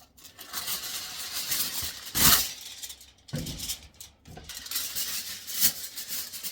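Rustling and knocking of household items being handled. A louder knock comes about two seconds in and another near the end.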